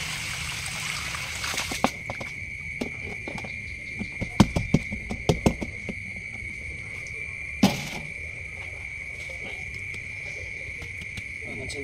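Rinse water pouring out of a plastic basin through a plastic colander for the first couple of seconds. Then plastic basins and the colander knock and clatter as the washed fish are handled, with the loudest knock just before 8 seconds. A steady high chirring of crickets runs underneath throughout.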